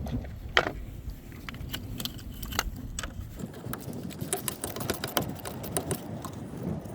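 Ratchet clicking in quick runs as the 10 mm nut on a truck battery's positive terminal clamp is loosened, with a sharp metal click about half a second in.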